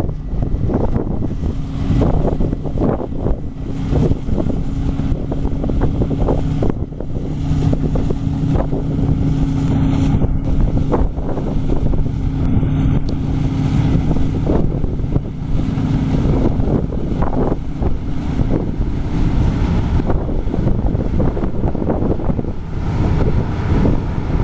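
Wind buffeting the microphone over the steady drone of harvest machinery engines, which fades out about three-quarters of the way through.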